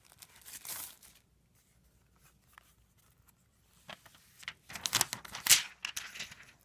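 Packaging rustling and crinkling as a tablet is unwrapped, in two spells: a short one at the start, then after a pause of about three seconds a longer, louder one with sharp crackles.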